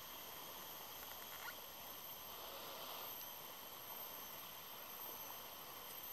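Faint, steady outdoor ambience: an even hiss with thin, steady high-pitched tones running through it.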